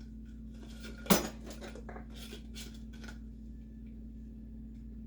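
Metal cutlery and knives clinking as they are handled and set down in a kitchen utensil drawer: one sharp clink about a second in, followed by a few lighter clinks.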